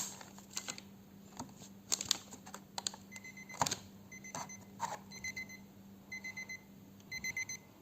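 Seiko QHE153LLH battery-powered alarm clock sounding its alarm on the low-tone setting: short bursts of rapid electronic beeps, about one burst a second, starting about three seconds in after a few clicks. The owner says the clock's battery is low.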